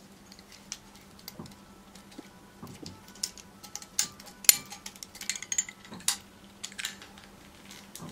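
Waiter's corkscrew working into the cork of a wine bottle: irregular metallic clicks and scrapes of the corkscrew against the cork and glass neck, busiest and loudest in the second half, over a faint steady low hum.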